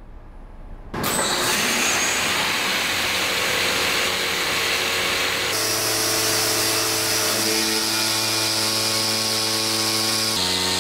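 Incremental router bit on a Voyager XP 5-axis CNC saw spinning and grinding into a 2 cm porcelain slab: a loud, steady grinding hiss that starts abruptly about a second in. About halfway a steady hum of several tones from the spindle joins it.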